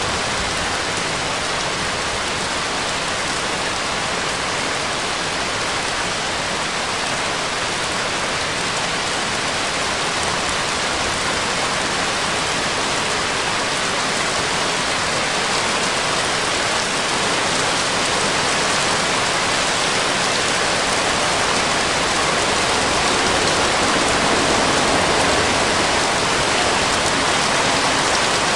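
Steady rain sound: an even hiss with no breaks, tones or beat, growing slightly louder in the second half.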